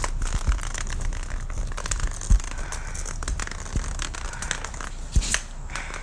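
Rustling and crackling handling noise from a phone recorder being carried, over a low rumble, with two louder thumps about two and five seconds in.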